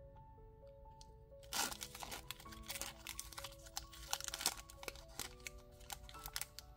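Foil wrapper of a Magic: The Gathering booster pack being torn open and crinkled, starting about a second and a half in, over soft background music.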